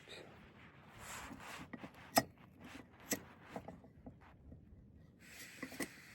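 Small clicks and knocks from a backpacking stove being handled. About five seconds in, a steady hiss starts suddenly as gas begins to flow from the stove.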